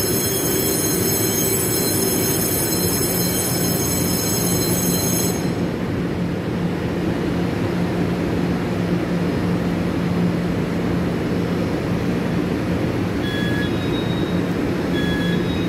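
Taiwan Railways EMU500-series electric commuter train standing at a platform, its onboard equipment giving a steady hum. A high-pitched whine cuts off suddenly about five seconds in, and two short beeps sound near the end.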